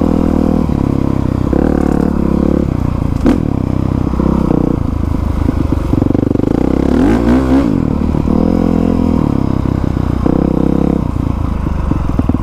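Honda CRF450R's single-cylinder four-stroke dirt bike engine running under way, its note rising and falling with the throttle and dipping then climbing again around seven seconds in. A sharp knock about three seconds in.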